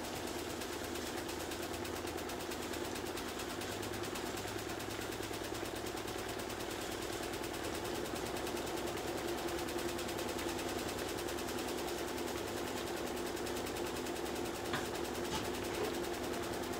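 Steady kitchen hum and hiss around pots simmering on the hob burners, with a couple of light clicks near the end.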